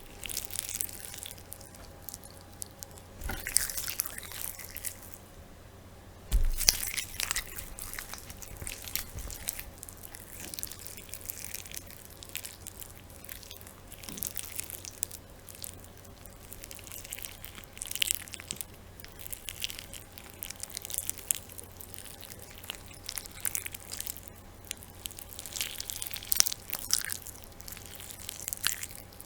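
Raw meat being kneaded and squeezed by one hand: irregular wet squishing and crackling, with a faint steady hum underneath.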